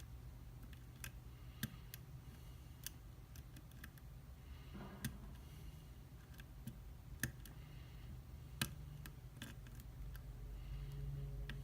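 Small metallic clicks and scrapes of a lock pick and tension wrench working the pins inside a handmade pin-tumbler challenge lock, scattered and irregular with a sharper click every second or two.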